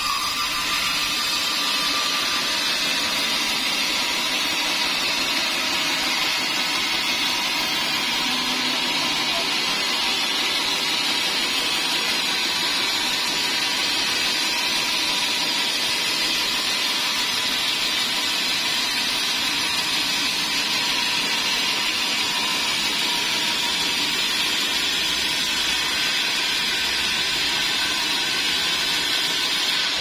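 Sawmill band saw cutting lengthwise through a large pine log: a steady, loud hiss of the blade in the wood over the machine's running.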